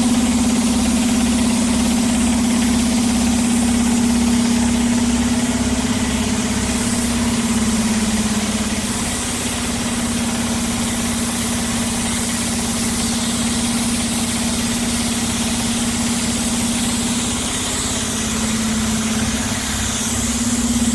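Diesel engine of a heavy road construction machine running steadily, with a strong steady hum and a regular low throb underneath.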